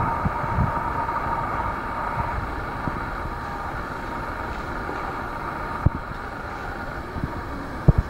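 A steady, distant mechanical drone with a faint hum, and two short low bumps near the end.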